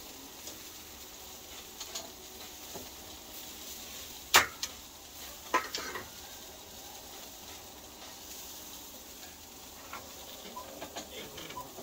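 Food sizzling on a barbecue, a steady hiss, with a sharp click about four seconds in, another about a second later, and a few light ticks near the end.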